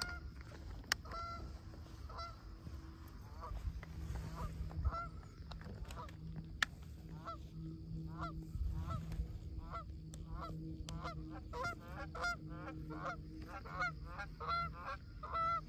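Canada geese honking, single honks at first and then more and more often from about seven seconds in. Two sharp clicks stand out, one about a second in and one near the middle, over a low rumble.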